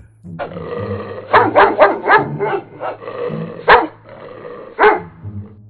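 Street dogs barking: a quick run of barks from about a second and a half in, then a few single barks, the loudest just before four seconds.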